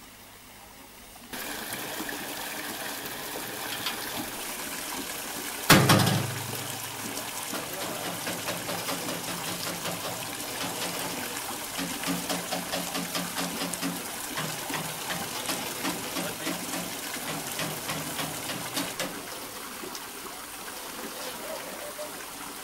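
Water gushing into the water tank of a cogwheel steam locomotive through its open filler hatch, surging in uneven pulses. A single loud metallic clang sounds about six seconds in.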